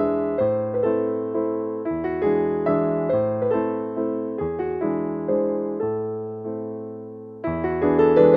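Background piano music: chords and notes struck at an even pace, each fading before the next.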